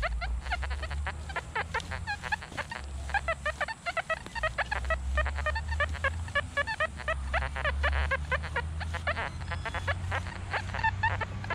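Nokta metal detector chattering with a constant stream of short beeps that jump in pitch as the coil sweeps over a burn pile thick with iron and foil; near the end it settles into an evenly repeated beep, about two or three a second.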